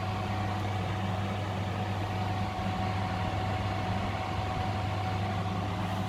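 Toshiba window air conditioner running, its fan blowing with a steady low hum and a faint steady whine; it is not very loud at all. The sound steps up slightly right at the start and then holds even.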